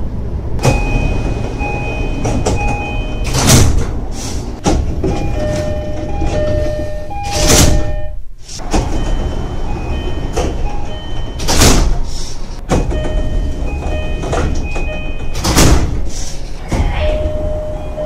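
Japanese commuter train doors closing again and again: an electronic door chime of short beeps at two pitches, each run ending in a loud hiss of air as the doors shut, about four times over.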